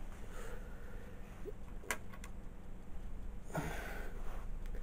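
Quiet handling sounds over a low steady hum: a sharp click about two seconds in, then a short rustle as hands move across a fabric cushion.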